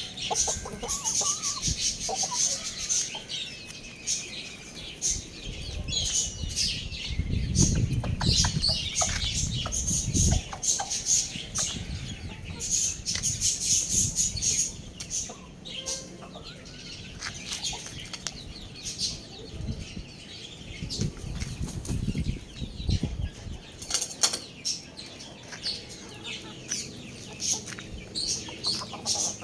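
Chickens flapping and scuffling, with many high-pitched chirps and short clicks throughout and some clucking. Low rumbling comes in bouts about a quarter of the way in and again past two-thirds.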